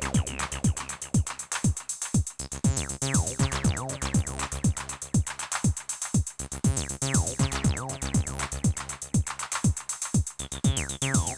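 Roland T-8 groovebox playing an electronic drum-machine pattern: a steady four-on-the-floor kick that drops in pitch on each hit, constant hi-hat ticks, falling zap-like sweeps and a low bass line underneath.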